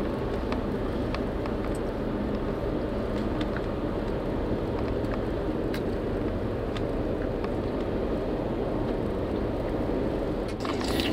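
Steady engine and road noise heard inside a moving vehicle, a low even rumble with a few faint ticks.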